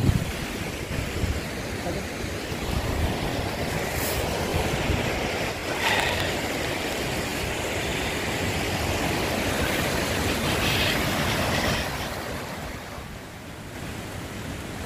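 Steady rushing of a waterfall, with low buffets of wind on the microphone at the start; the rush eases a little near the end.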